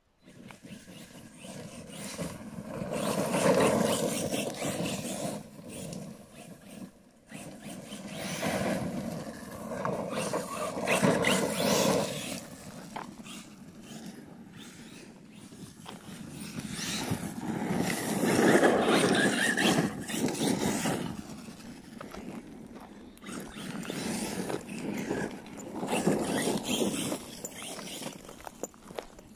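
Arma Kraton 6S brushless RC truck driving back and forth on loose dirt and gravel, its motor and tyres swelling and fading as it passes about four times.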